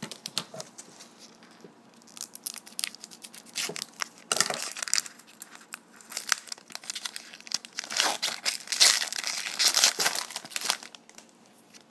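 Foil trading-card pack wrapper crinkling and being torn open, a dense crackling that comes in two louder spells, about four seconds in and again from about eight to eleven seconds in.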